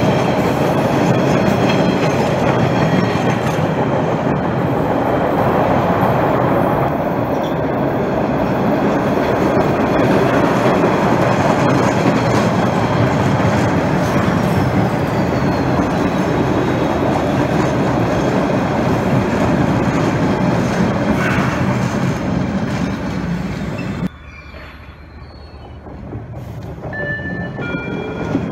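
MBTA Orange Line subway train running past on the rails, a loud, steady rush of wheel and track noise. About 24 seconds in the sound drops off abruptly, then rises again as another Orange Line train approaches, with a few short wheel squeals near the end.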